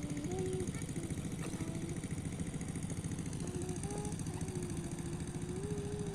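A small engine running steadily at a fast, even beat.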